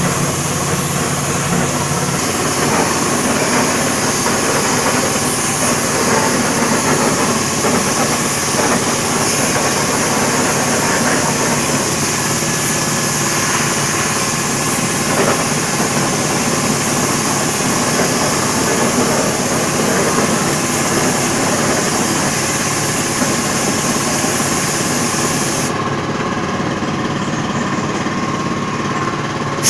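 Hiss of a chrome spray gun's compressed air over a motor running steadily underneath. The hiss drops away about four seconds before the end while the motor keeps running.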